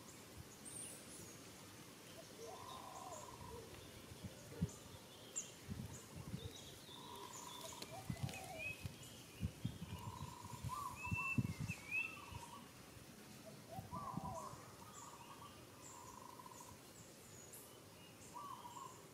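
Background birdsong: one bird gives a short call over and over at irregular intervals, and a few higher chirps come near the middle. Scattered soft low knocks and bumps, the loudest sounds, fall through the middle stretch.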